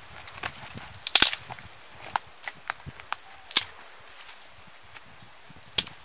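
Dry branches and twigs snapping as they are broken by hand, a series of sharp cracks: the loudest cluster comes about a second in, single cracks follow every half second or so, and one more comes near the end.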